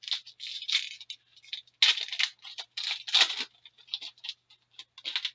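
A hockey card pack's wrapper being torn open and the cards slid out and handled, heard as an irregular run of crinkling, rustling scrapes.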